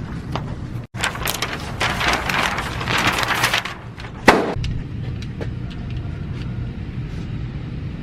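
Gunfire at a shooting range: scattered sharp cracks throughout, with one much louder shot about four seconds in. Before it, a rushing hiss runs for about two and a half seconds.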